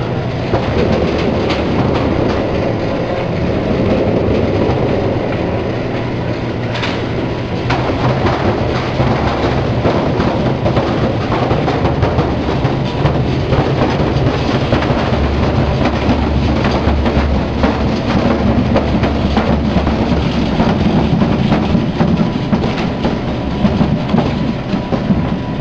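Stainless-steel potato washing machine running, its 1 HP electric motor giving a steady low hum under a dense, continuous rattling clatter.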